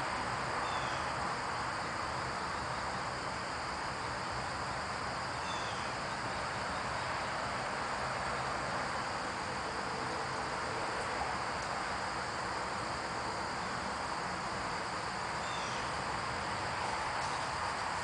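Outdoor ambience: a steady high insect drone over a constant hiss, with a short falling bird chirp three times.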